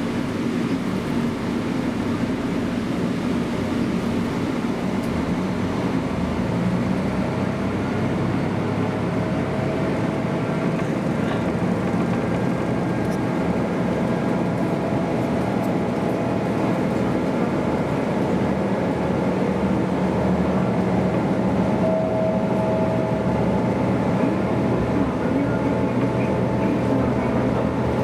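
Inside the cabin of a KiHa 200 diesel railcar pulling away from a station: the diesel engine drones steadily under power over the rumble of wheels on rail. A faint whine edges up in pitch as the train gathers speed.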